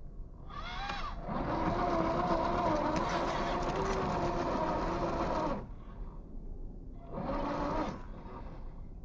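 Traxxas TRX-4 Defender RC crawler's electric motor and geartrain whining in bursts under throttle while climbing: a short rising whine about half a second in, a long steady whine for about four seconds, then another short whine near the end.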